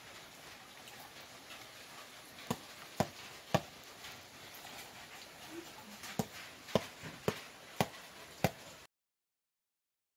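Hand slapping the side of a football spinning on a fingertip to keep it turning: sharp taps about half a second apart, three a couple of seconds in, then five more from about six seconds in. The sound cuts out completely near the end.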